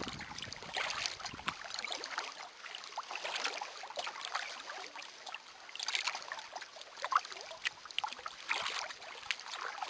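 Small waves lapping and splashing against a boat's hull, in soft irregular swells about every two to three seconds.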